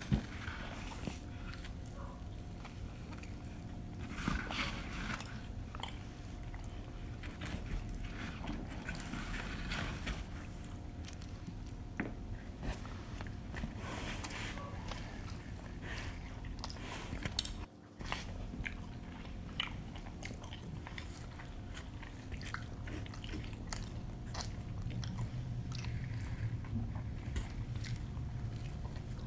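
Close-miked chewing and biting of pizza, with many short wet mouth clicks and smacks over a faint steady hum. The sound drops out for a moment just past halfway.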